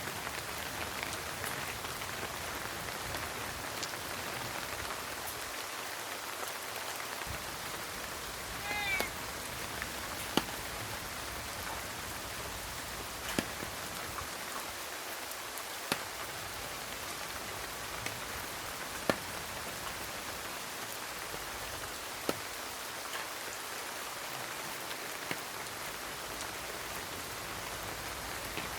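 Steady rain falling, with sharp taps of heavier drops about every three seconds. A cat gives one short meow just under nine seconds in.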